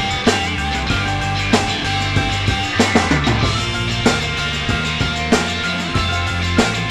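Rock-style background music, with a drum kit keeping a steady beat and strong hits about every second and a quarter.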